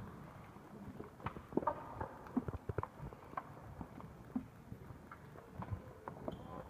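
Irregular footsteps and small knocks of performers moving and shifting on a wooden stage, the densest cluster about one to three seconds in.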